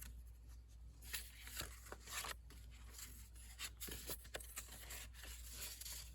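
Sheets of paper and cardstock rustling and sliding against each other as pieces are picked up and laid into a stack, in a string of soft, brief brushes.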